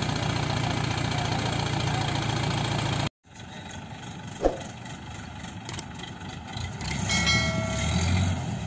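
Heavy diesel engine of a mobile crane running steadily, cut off abruptly about three seconds in. After it, engine sound at a distance, a single sharp click, and a short steady pitched tone near the end.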